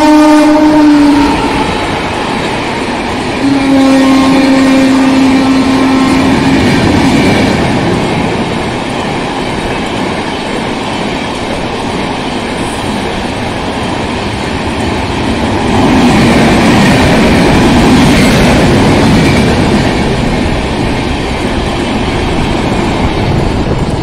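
Indian Railways electric locomotive's horn sounding, once ending about a second in and again for about three seconds, as the train runs through at high speed. Then the LHB coaches go past with a steady rumble and clatter of wheels on the rails, growing louder again later on.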